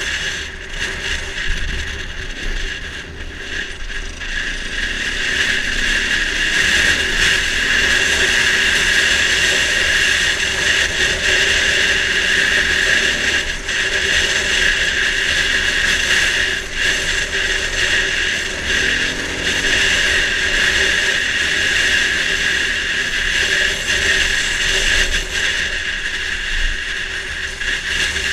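Dirt bike engine running under way on a dirt trail, heard from the rider's helmet-mounted camera. It picks up from about four seconds in and then holds fairly steady.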